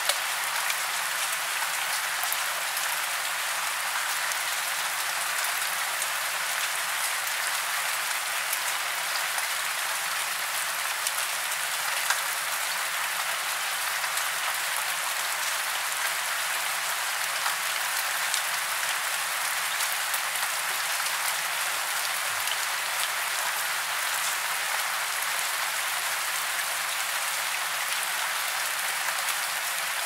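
Steady rain falling: an even, bright hiss with occasional sharp drop ticks, unchanging throughout.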